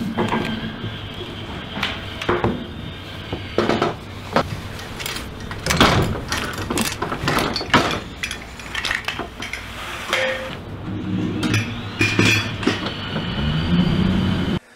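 Irregular metallic clinks, clanks and knocks as a pole and gear are worked down a sewer manhole shaft, over a low steady hum.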